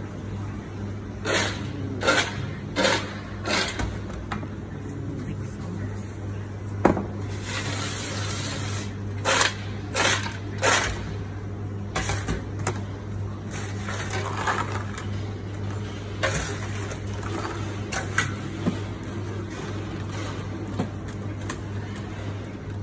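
A metal spoon clinking and scraping against a large stainless-steel bowl as fries are tossed, in a run of sharp irregular clinks over a steady low hum.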